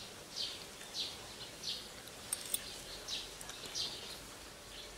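A bird chirping repeatedly, short high notes that fall in pitch, a little under two a second.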